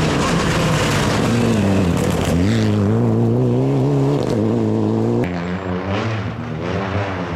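Mitsubishi Lancer Evolution IX rally car's turbocharged four-cylinder at full throttle, passing close on a gravel stage with gravel spraying. The engine note drops as it goes by about two seconds in, then climbs steadily as it pulls away. About five seconds in, the sound cuts abruptly to a fainter rally car engine rising and falling in pitch.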